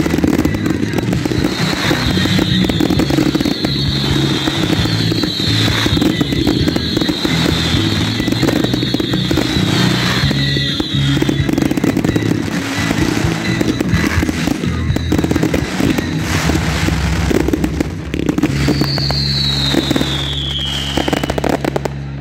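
Fireworks finale: many shells bursting in rapid succession, a dense, continuous run of bangs and crackling, with music playing underneath.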